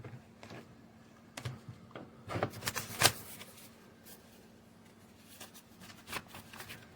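Handling noises: scattered light clicks and clatters. They come thickest about two to three seconds in, where the loudest click falls.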